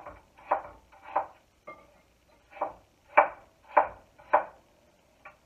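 Knife chopping peeled apple on a wooden cutting board: a series of about nine short, sharp strikes, roughly one every half second, with a brief pause about two seconds in.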